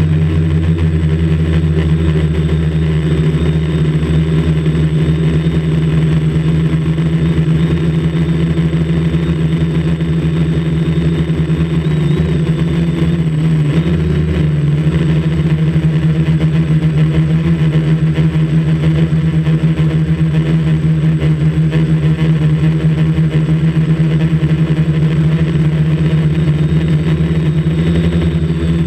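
Quadcopter's electric motors and propellers running with a steady, loud buzzing hum, heard close up from a camera mounted on the aircraft. The pitch wavers briefly about twelve to fourteen seconds in.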